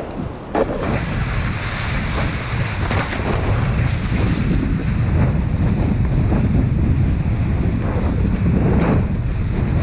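Heavy wind noise buffeting the microphone over rushing water while kitesurfing at speed, with a few short splashes from the board hitting chop.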